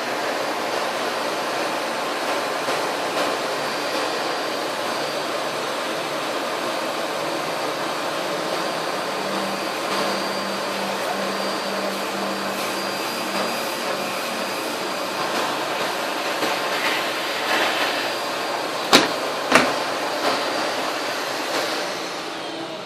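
Vacuum cleaner running steadily, with two sharp knocks about half a second apart near the end.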